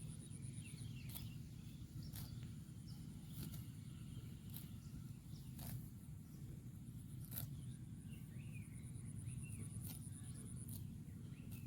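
Cow grazing at close range: sharp tearing rips as it pulls grass, about one every second, over a steady low rumble. A high pulsing insect buzz and short bird chirps sound in the background.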